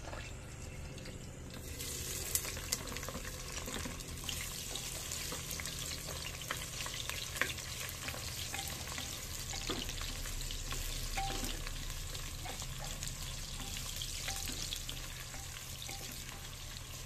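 Sliced red onion, garlic and ginger sizzling in hot oil in a clay pot, the sizzle starting about two seconds in as they go into the oil, with the scrape and tap of a wooden spatula stirring them.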